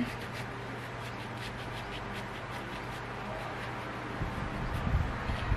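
Kitchen knife cutting through a lemon held in the hand: faint scratchy scraping of the blade through the peel over a steady low hum, with soft handling bumps near the end.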